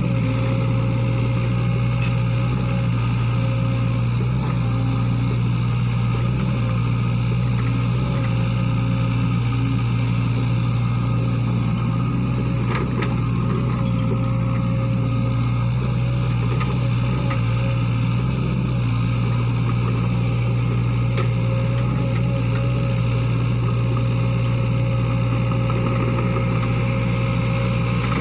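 Sany SY55C mini excavator's diesel engine running steadily while the machine digs, a constant low hum with a few faint knocks about halfway through.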